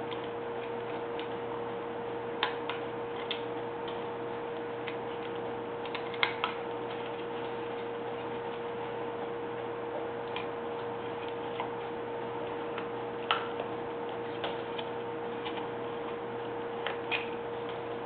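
Carving knife cutting chips from a wooden figure: scattered sharp ticks of the blade biting and snapping off wood, irregularly every second or few, sometimes in quick pairs, over a steady hum.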